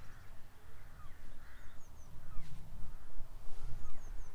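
Birds calling: a scattered series of short, downward-sliding calls over a steady low rumble.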